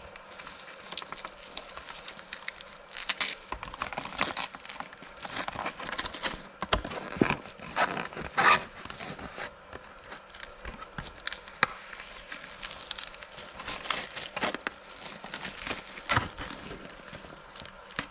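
Thin clear plastic protective film crinkling and crackling in irregular bursts as it is peeled off a plastic RC truck body shell and crumpled in the hand.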